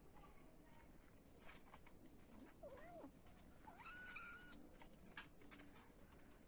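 Kitten meowing faintly twice, about two and a half seconds in and again about four seconds in, the second call higher-pitched.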